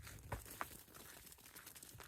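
Faint rustling with two soft clicks, about a third of a second and two thirds of a second in.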